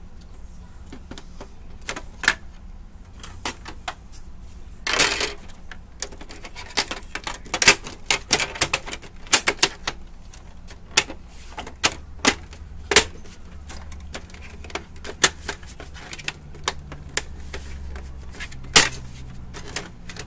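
Irregular sharp plastic clicks and knocks from the parts of an opened Brother DCP-T710W inkjet printer being handled and fitted by hand, with a short scraping rustle about five seconds in.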